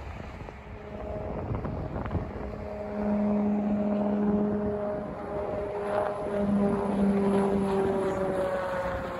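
Small propeller aircraft on approach overhead: a steady propeller drone with a hum in several tones. It grows louder about three seconds in, and its pitch sags slightly near the end as it passes.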